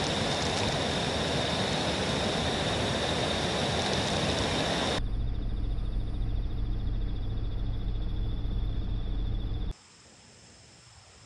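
Outdoor ambience in three cut-together takes: first an even rushing noise under a steady high insect buzz, then a low rumble under the same buzz, now pulsing. Near the end it drops suddenly to faint, high insect chirping.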